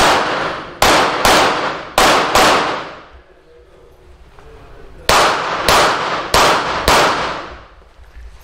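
Pistol shots fired in quick pairs during a dynamic-shooting stage: two shots, a short pause, two more, then after a gap of about two and a half seconds another four shots in two pairs. Each shot is sharp and leaves a short echoing tail.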